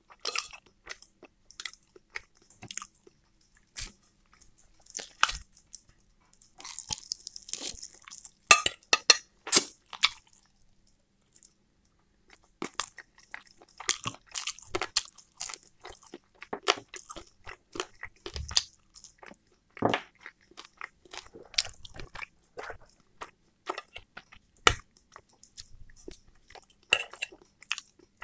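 Close-miked chewing and biting of chicken and potatoes: wet crunching mouth sounds with many short clicks. The crunching is densest from about seven to ten seconds in and pauses briefly around eleven to twelve seconds in.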